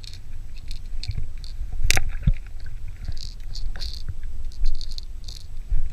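Underwater sound through a diving camera's housing: a steady low rumble with scattered clicks and knocks, one sharp click about two seconds in, and clusters of short hissy bursts in the second half as the diver handles a rusty blade tangled in fishing line.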